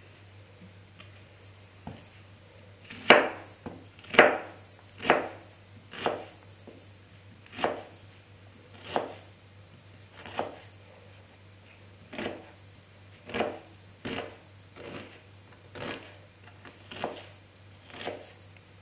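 Kitchen knife chopping a red onion on a cutting board, the blade knocking on the board about once a second from about three seconds in. The first few strokes are the loudest.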